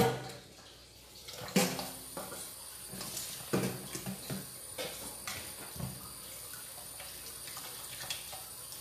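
Kitchen sink tap running steadily, starting about a second and a half in, with scattered knocks and clatter of things handled at the sink; a sharp knock right at the start is the loudest sound.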